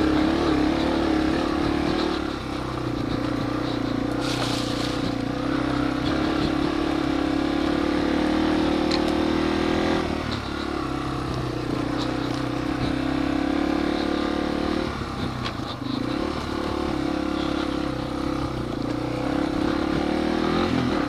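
Yamaha TW200's single-cylinder four-stroke engine running steadily as the dual-sport bike is ridden along a dirt trail, its pitch dipping briefly about ten and again about fifteen seconds in. A short rushing hiss about four seconds in.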